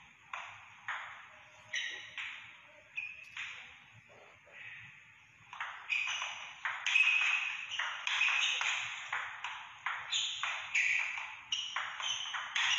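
Table tennis ball strokes: a few scattered taps at first, then a rally from about six seconds in. The ball clicks off the bats and bounces on the table about twice a second, each knock sharp and ringing briefly in the hall.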